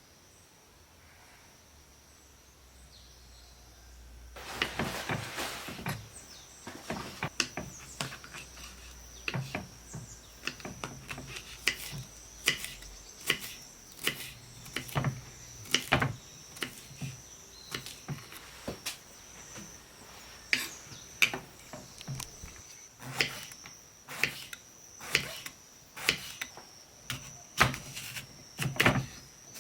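Faint outdoor ambience with a steady high insect drone, then from about four seconds in a knife chopping on a wooden cutting board in irregular sharp strokes, about one or two a second.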